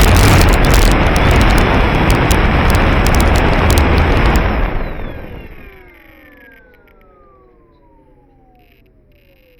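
Strong wind buffeting the microphone, with crackling, that dies away about five seconds in. It leaves a much quieter whine with several overtones that falls steadily in pitch, like something spinning down.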